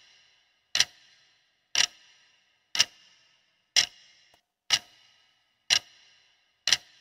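Clock-tick sound effect of a quiz countdown timer, one sharp tick a second with a short ringing tail, about seven ticks in all.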